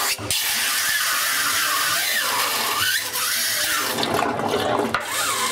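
Dirty insulating oil being drained out of an 11 kV oil-switchgear tank through a hose to an oil truck: a steady hiss and slurp of oil and air going down the hose, with wavering whistle-like tones over it.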